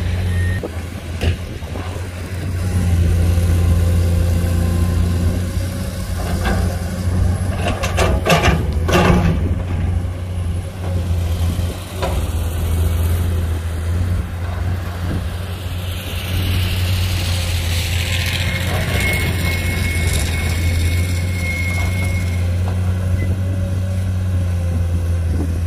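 Diesel engines of heavy earthmoving machinery, a tipping dump truck and then a crawler excavator, running steadily with a deep hum. A cluster of clanks about eight to nine seconds in, and a rushing hiss for several seconds in the second half.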